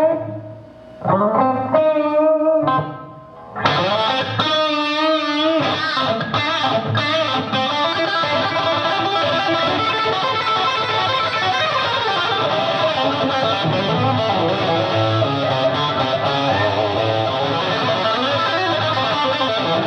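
Electric guitar playing a solo on its own: a few phrases broken by two short pauses, then continuous fast playing from about four seconds in.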